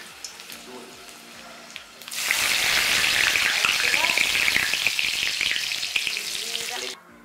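Hot oil in an iron kadhai sizzling loudly as bay leaves are dropped in among fried dried red chillies. The hiss starts suddenly about two seconds in, holds steady, and cuts off abruptly near the end.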